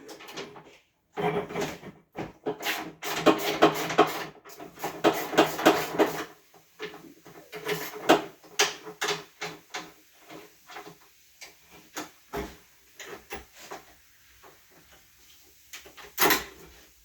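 Clattering and clicking of dryer parts and tools being handled during a repair: a dense run of rapid rattling clicks in the first few seconds, then scattered knocks, with one louder knock near the end.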